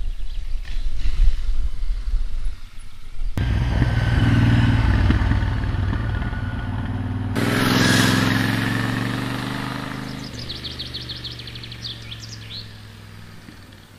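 Royal Enfield Interceptor 650's parallel-twin engine heard through its twin exhausts as the bike rides past. A low rumble gives way about three seconds in to a strong, steady engine note that swells to a peak about eight seconds in, then fades away as the bike moves off. Birds chirp rapidly near the end.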